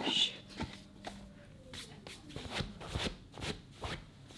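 Hands opening a green canister and handling its packaging: a string of short rustles and taps about every half second, with a faint falling squeak about a second and a half in.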